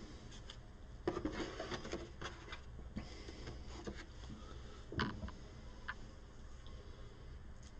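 Cards and a board-game box being handled: light rustles and taps, busiest about a second in, with one sharp tap about five seconds in.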